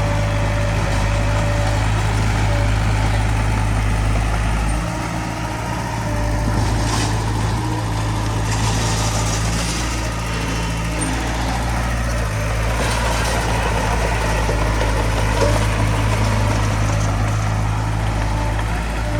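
Diesel engine of heavy earthmoving machinery running steadily under load, dipping briefly about five seconds in.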